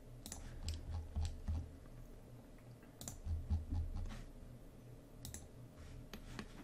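Irregular clicks of a computer mouse and keyboard while working at a computer, over a faint low hum.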